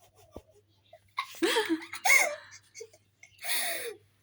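A few short vocal cries whose pitch rises and falls, in two groups, the later one breathier with a falling pitch.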